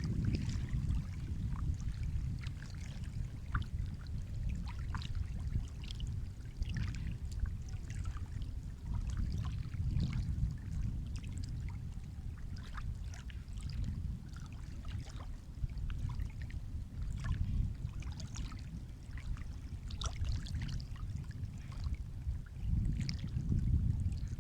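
Sea water lapping and sloshing, a low rumble that swells and eases every few seconds, with many small splashes and trickles over it.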